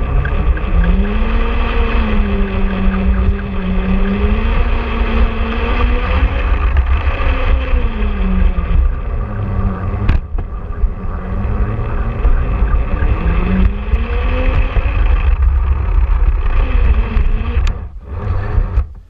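Small electric motor of a self-propelled LGB garden-railway wagon running, its whine gliding up and down in pitch as the speed changes, over a loud rumble from the wheels on the track. There is a sharp click about ten seconds in, and the sound cuts off near the end as the wagon stops.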